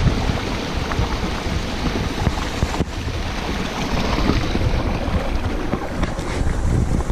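Steady rushing noise of a spring-fed waterfall, with wind buffeting the microphone in uneven low rumbles.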